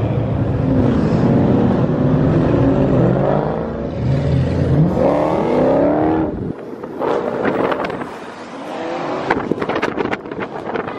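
Muscle car engines rumbling and revving, one climbing in pitch as it accelerates. About six and a half seconds in the rumble cuts off suddenly and gives way to crackling wind buffeting on the microphone from a moving car.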